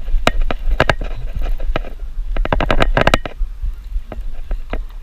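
Bursts of rapid clicking and scraping from a baitcasting reel while a hooked bass is reeled in, the densest run about two and a half seconds in. A low rumble of wind on the microphone runs underneath.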